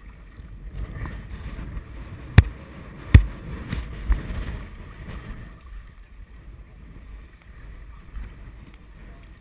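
Two loud sharp knocks about a second apart, then a softer third, over low rumbling and sloshing as an inflatable rescue boat is handled in shallow floodwater, its outboard tilted up and not running.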